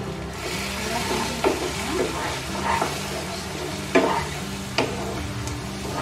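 Wooden spatula stirring and scraping onion-tomato masala that sizzles in oil in a nonstick pan, with a few sharper strokes of the spatula against the pan.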